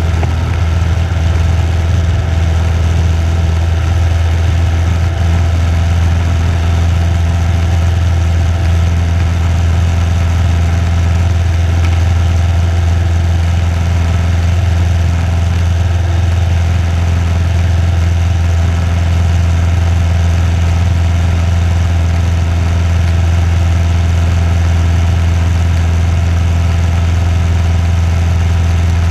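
Single-engine light aircraft's piston engine and propeller running steadily at takeoff power, heard from inside the cockpit, through the takeoff roll, liftoff and climb-out of a touch-and-go.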